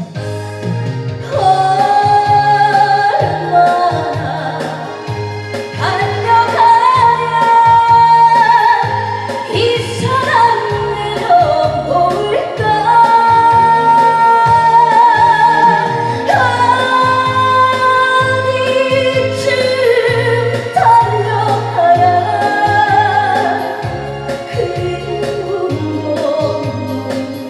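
A woman singing a slow, plaintive Korean song in long phrases, holding notes with vibrato, over electronic organ accompaniment with a steady bass line.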